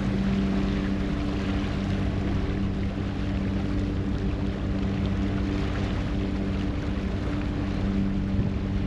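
Passenger ferry's engine running steadily under way, a constant low hum, with an even rush of churning wake water and wind.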